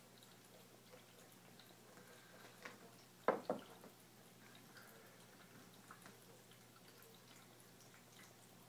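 A cat lapping water from a drinking glass: faint wet laps and small drips, with two louder, sharper splashes about three seconds in. A pet water fountain trickles and its pump hums steadily underneath.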